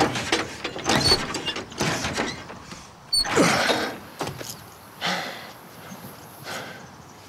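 Rhythmic mechanical creaking and clunking, about one stroke a second, from a hand-worked mechanism on a vintage car, loudest in the first half and fading toward the end.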